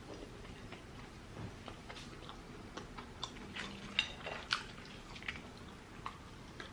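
A person chewing food close to the microphone: irregular wet clicks and crunches from the mouth, with a couple of sharper ones a little past the middle.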